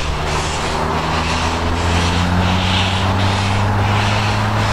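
Industrial steam locomotive working a coal train, its chimney exhaust beating in slow, even chuffs, over a steady low drone.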